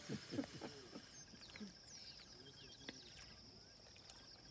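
Quiet bush ambience: a steady high insect drone with short bird chirps, and a few brief low sounds in the first second.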